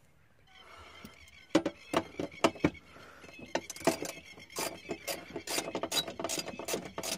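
Ratchet wrench clicking in a run of quick, irregular strokes, starting about a second and a half in, as a T45 Torx seat-rail bolt is undone.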